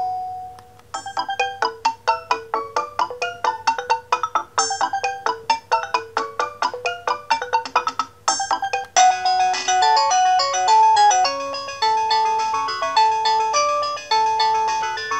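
Philips SE 455 phone playing its built-in electronic ringtones. After a brief pause, a tune of quick, short notes starts about a second in. At about nine seconds it gives way to a fuller tune with longer held notes.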